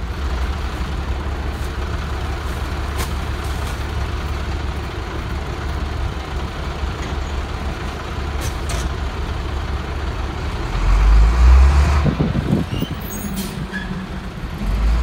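Rear-load garbage truck's diesel engine running steadily, with a louder surge about eleven seconds in followed by short bursts of hiss and clatter.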